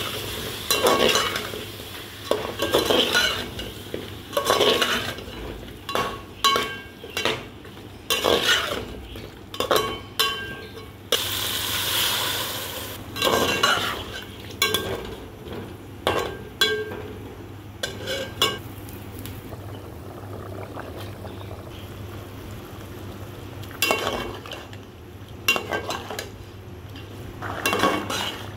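Slotted metal spoon stirring and scraping potato cubes and masala around a metal pot, in strokes every second or two, over a steady sizzle of frying.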